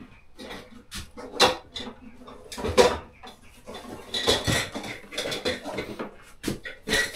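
Kitchen pots, bowls and utensils being handled: a series of separate knocks and clinks of dishware, the loudest about three seconds in.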